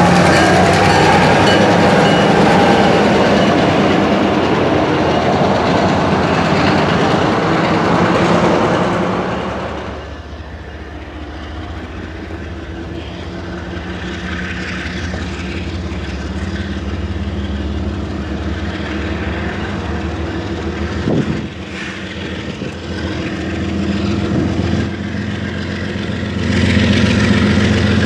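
Two diesel switcher locomotives running past, their engines and wheels on the rails loud for about the first ten seconds. Then a quieter, steady diesel locomotive engine drone that grows louder near the end as another locomotive approaches.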